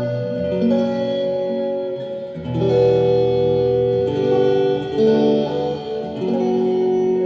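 Guitar improvising a slow passage of held, ringing chords, moving to a new chord every second or two.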